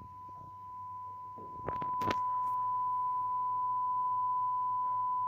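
Steady pure test tone played by a 12-speaker linear loudspeaker array whose beam is steered toward the sound level meter. Two sharp clicks come about two seconds in, and after them the tone is louder.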